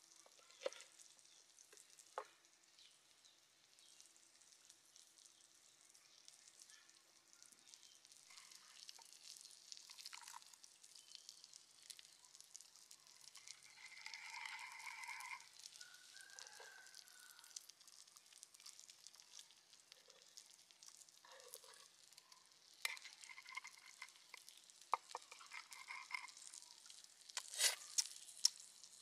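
Wooden pestle stirring and grinding a wet sauce in a wooden mortar, a soft wet scraping, with a few sharp knocks of wood on wood near the end.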